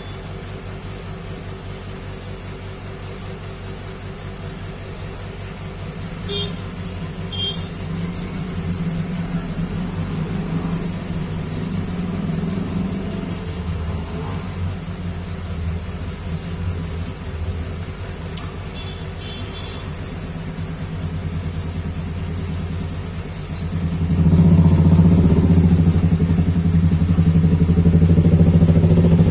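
A low, engine-like hum, like a motor vehicle running, that swells and gets much louder near the end. Twice, a few seconds in, brief high chirps sound over it.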